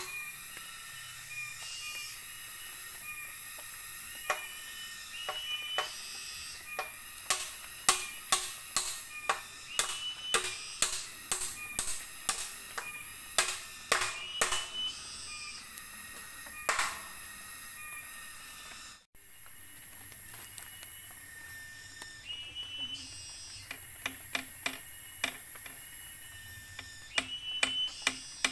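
Background music with light ticking, clicking percussion and short high melodic notes.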